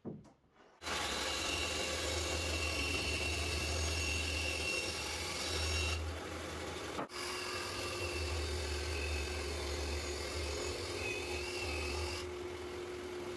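Bandsaw running and ripping solid European ash boards to rough width: a steady motor hum under the blade's cutting noise. It starts under a second in and breaks off briefly about seven seconds in before going on.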